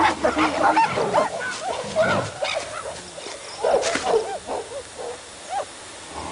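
Australopithecus group shrieking and yelping in alarm at a Dinofelis attack: a rapid string of short, high calls that rise and fall in pitch, thinning out and getting quieter after about three seconds.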